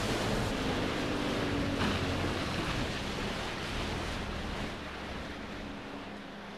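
Small waves washing and lapping against a boat's hull: a steady, churning wash of water that slowly grows quieter.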